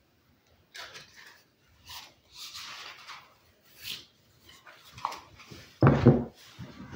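Tarot cards and deck boxes handled on a wooden table: soft rustles and slides, then a louder knock about six seconds in.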